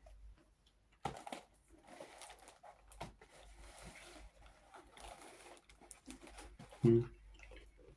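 Close chewing and mouth noises of someone eating toffee candy, soft and irregular with small clicks. Just before the end comes a short low hum-like sound, the loudest moment.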